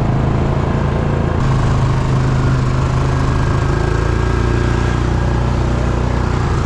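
A vehicle's engine running steadily as it drives along, a continuous low hum that shifts slightly a couple of times.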